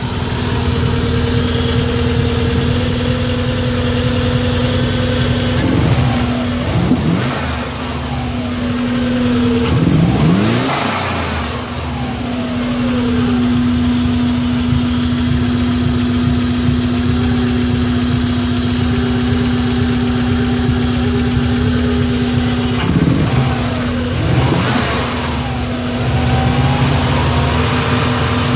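1994 Subaru Impreza's flat-four engine idling, with the throttle blipped twice about six seconds in, a longer rev about ten seconds in, and two more blips near the end. The engine has a misfire that the owner suspects comes from a coil pack or the MAF sensor.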